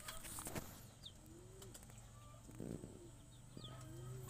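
Domestic pigeons cooing: two low, arching coos, one about a second in and one near the end, with a few short high chirps in between.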